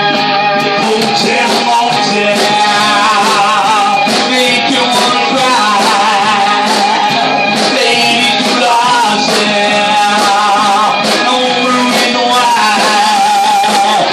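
Rock band playing live with amplified guitars, a wavering lead melody line and drums with crashing cymbals.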